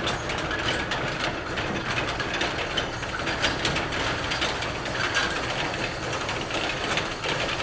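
Motorized roll-up steel shutter door rising, its motor running steadily while the metal slats rattle and clatter as they wind up.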